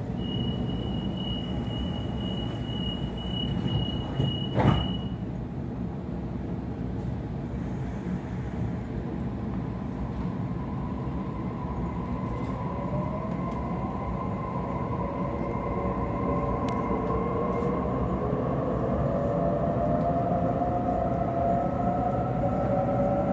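Sydney Trains Waratah A set at a platform: a high door-closing warning tone sounds for about five seconds and the doors shut with a single loud knock. Then the Hitachi IGBT-VVVF traction inverter and motors start to whine, several tones rising in pitch as the train pulls away, over a steady cabin rumble.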